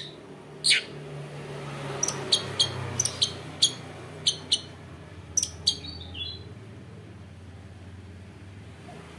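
Female long-tailed shrike giving short, sharp, harsh calls: one about a second in, then a quick run of about ten notes over the next four seconds, ending in a brief warbled note; after that the calls stop for a few seconds.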